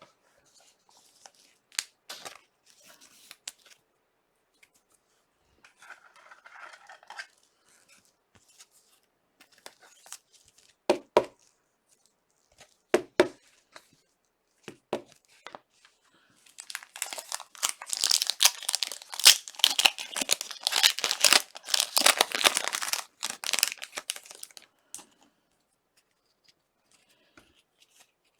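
A trading card pack's wrapper being torn open and crinkled by hand, loud and crackly for several seconds in the second half. Before that come scattered sharp clicks and soft rustles of cards being handled.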